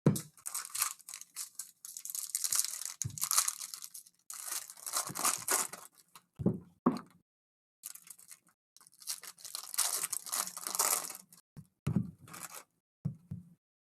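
Plastic and foil wrapping of Panini Donruss basketball card packaging being torn open and crinkled in several bursts, with a few light knocks of handling.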